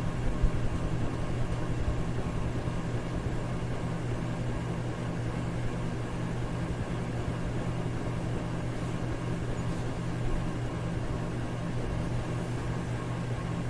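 Electric fan running steadily: an even whoosh of moving air with a low motor hum underneath.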